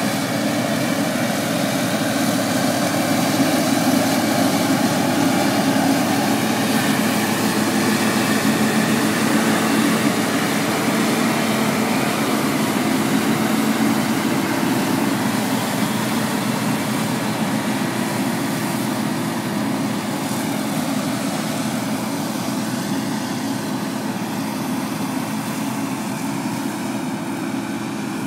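Claas Lexion 660 combine harvester running steadily while threshing grain, a continuous engine and machinery hum. It grows gradually fainter over the second half as the combine moves away.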